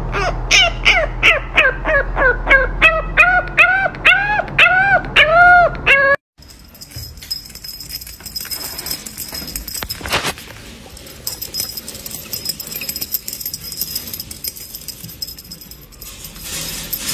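French bulldog puppy giving short whines that rise and fall in pitch, in a rapid series of about three a second, for roughly six seconds. After a sudden cut, a quieter stretch of rustling and light clicks follows.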